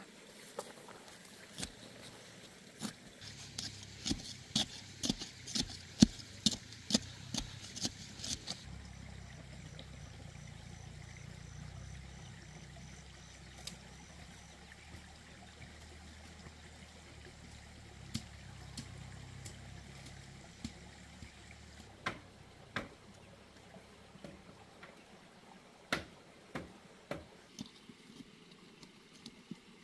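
Hand hoe striking the ground: a quick run of sharp knocks, about two a second, then scattered single strikes further apart, over a faint trickle of running water.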